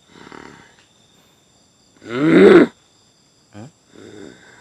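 A person's voice making wordless vocal sounds: a short one, then a loud drawn-out cry with bending pitch about two seconds in, then two brief ones.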